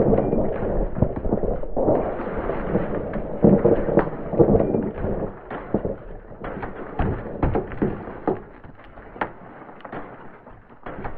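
Iceberg breaking apart: a dense run of sharp cracks and pops over a low rumble of collapsing ice. After about six seconds it thins to scattered cracks.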